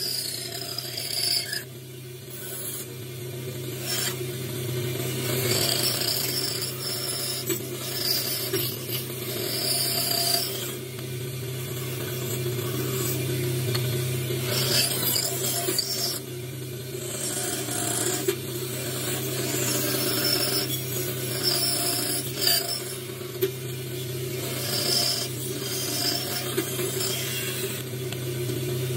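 Bandsaw running with a steady motor hum while its narrow blade cuts through a thick wooden block, a rasping cut that swells and fades as the wood is fed into the blade and eased back.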